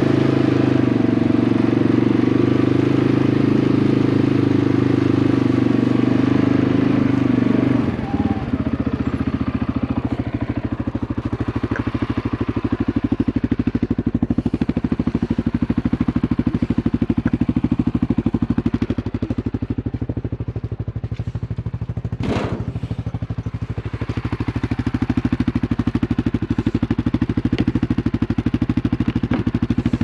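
ATV engine running as it is ridden, then, about eight seconds in, dropping to a steady idle with an even pulse that carries on through the rest. A brief sharp sound stands out about two-thirds of the way through.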